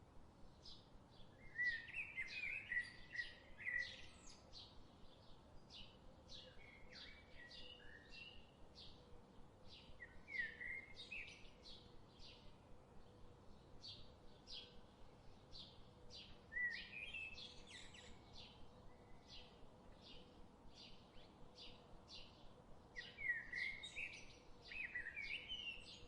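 Birds calling: a short high chirp repeated about twice a second, with louder warbling song phrases every few seconds, loudest around two seconds in and again near the end.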